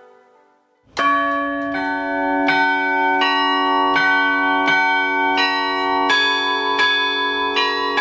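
Church bells struck one after another about every three-quarters of a second, starting about a second in. Each stroke rings on and overlaps the next.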